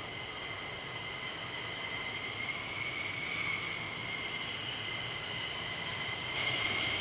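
Jet engines of F-15E Strike Eagles running at ground idle: a steady high whine made of several tones over a dull rush. The whine rises slightly in pitch about halfway through, and the sound steps up a little louder near the end.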